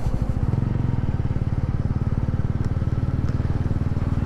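A TVS Ronin 225 motorcycle's single-cylinder engine running steadily as the bike cruises at low road speed, its firing pulses coming fast and even.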